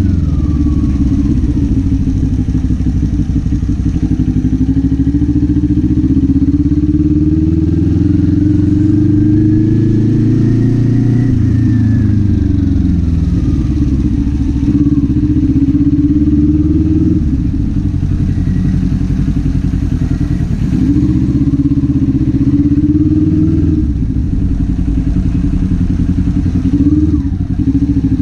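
Kawasaki Z400 parallel-twin engine and exhaust under way, its pitch climbing under throttle and falling back several times as the bike accelerates, shifts and slows.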